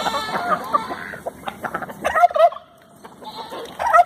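Chickens clucking, in short wavering calls that bunch in the first second, about two seconds in and again just before the end.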